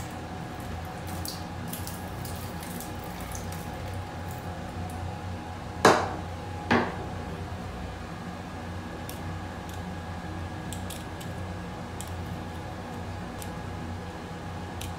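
Small clicks and clinks from handling a chrome shower-hose fitting, with two sharp knocks about a second apart near the middle, over a steady background hum.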